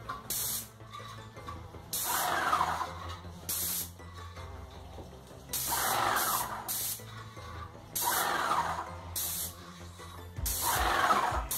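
Airless paint spray gun of a Graco Magnum LTS 15 sprayer firing in repeated bursts of hiss, some about a second long and some brief, as the trigger is pulled and released.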